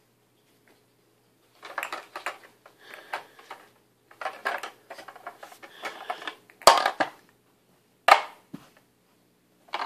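Hard plastic clattering and knocking from a baby's pound-a-ball toy: the plastic hammer and balls rattling against the plastic bench in two runs of quick taps, then two sharper knocks about seven and eight seconds in.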